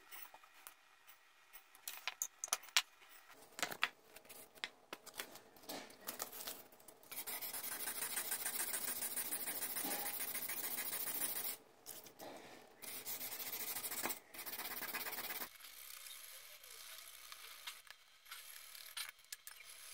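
Hand rubbing and scrubbing the rim of a copper box, a fast scratchy sound in two long stretches, fainter near the end. Before it, light scattered clicks and knocks of metal being handled.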